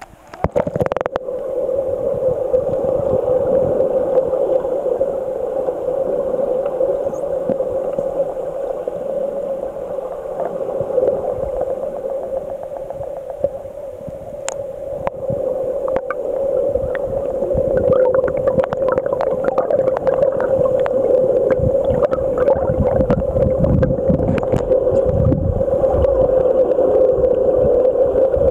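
Splashing as the camera goes under the water about half a second in, then muffled underwater sound: a steady hum of water with clicks, swishes and low thumps from a snorkeler's movement and bubbles. These become busier in the second half.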